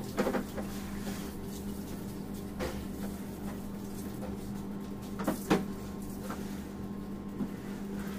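Steady low hum with a few handling clicks, and two sharp knocks close together about five seconds in as a round metal cake tin is pressed through sponge cake and strikes the granite counter.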